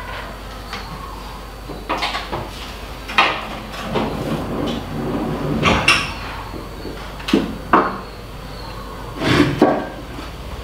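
Kitchen clatter: a string of separate knocks and clinks as utensils and containers are picked up and set down at the counter and sink, about half a dozen sharp ones spread unevenly through.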